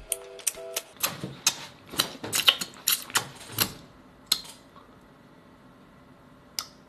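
Close-up chewing of springy, chewy grilled conch meat: an irregular run of wet clicks and smacks for about three seconds, then two single clicks.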